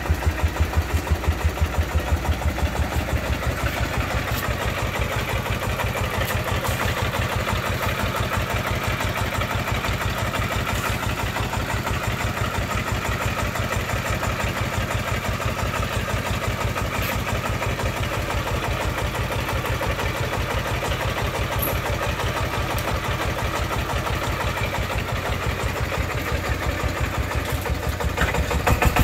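Single-cylinder diesel engine of a công nông farm truck idling with a steady, rapid chugging beat, growing louder near the end as it starts to take up the tow chain.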